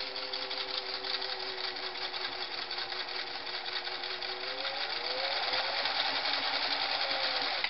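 Early-1960s Singer 347 sewing machine with metal gears, run by its foot-pedal motor and sewing a long straight stitch with a rapid, even clatter. About five seconds in it speeds up and runs louder, then it stops abruptly at the very end.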